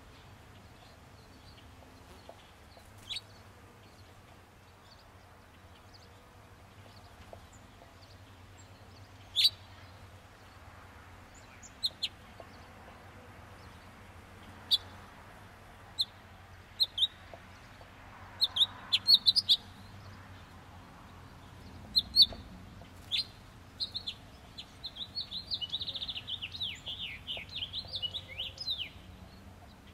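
Small birds chirping: scattered single sharp chirps, then near the end a rapid run of quick falling notes, over a faint steady low hum.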